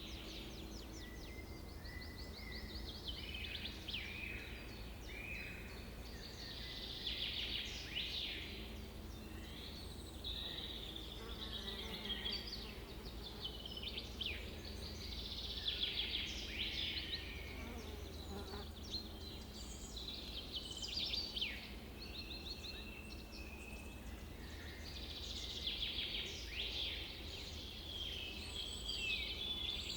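Several birds singing and chattering in repeated rapid trills and short sweeping calls, over a steady low rumble.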